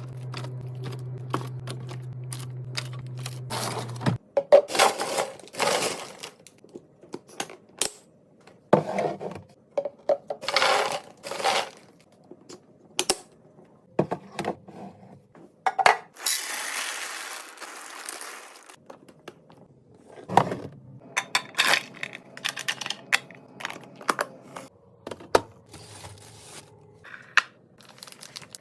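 Snacks and drinks being restocked by hand: a string of clinks, taps and knocks as items are set down, with packaging crinkling between them. A hissing rush lasts about three seconds, starting some sixteen seconds in.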